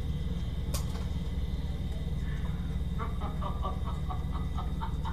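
Steady low hum, with one sharp click just under a second in and then a quick run of small clicks from about three seconds in, as of small screws and a tool being worked in a computer case.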